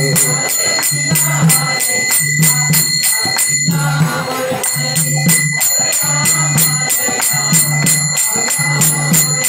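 Kirtan music: a pair of brass karatalas (small hand cymbals) struck in a steady rhythm, several strikes a second, their ringing held over a low accompaniment that pulses about once a second.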